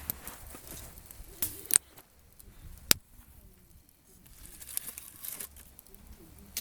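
Campfire of gathered firewood crackling, with scattered sharp pops and snaps, the loudest about two and three seconds in, and a quieter lull between three and four seconds.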